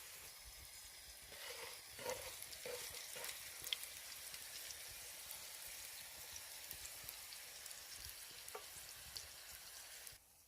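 Food sizzling and frying in hot fat, a steady hiss with scattered crackles, cutting off abruptly near the end.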